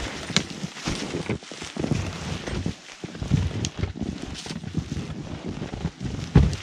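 Boots crunching and shuffling in deep snow while a man strains to lever an overturned snowmobile over with a birch pole, with wind buffeting the microphone; irregular low thumps and scrapes, the heaviest a thud near the end.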